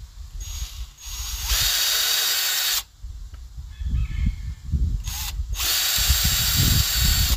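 Plastic zip tie being pulled through its ratchet head, a steady buzzy zipping in two long pulls that each stop abruptly, with shorter bursts around them, over handling rumble.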